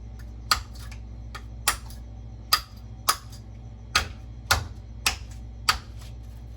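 A big Halfbreed Blades LSK-01 knife chopping into a young coconut's husk and shell. There are about eight sharp strikes, irregularly spaced roughly half a second to a second apart.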